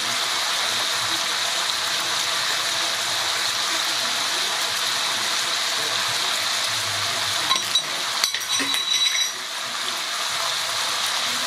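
Chicken breasts frying in oil and lime juice in a skillet, a steady sizzle. About eight seconds in, a short run of clicks and light knocks as spice jars are handled.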